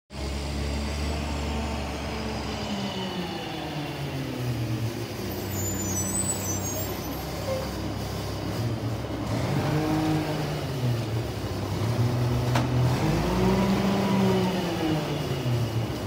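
Garbage truck's engine running as the truck drives along the street, its pitch rising and falling several times and growing louder in the second half.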